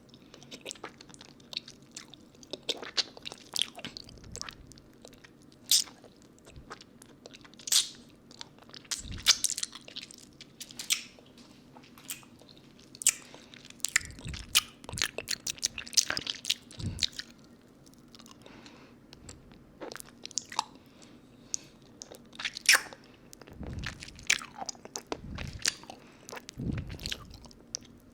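Close-up mouth sounds of a lollipop being sucked and licked: irregular wet smacks and sharp clicks of the hard candy against the teeth, picked up on a binaural 3Dio microphone.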